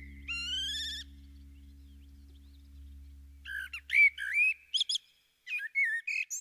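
Birdlike whistled chirps that slide up and down over a low steady hum. The hum fades out a little past the middle, and after a short gap a few more quick chirps come near the end.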